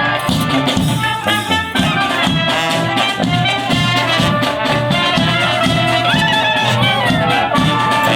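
Klezmer brass band playing live: horns carrying a melody over a steady bass beat.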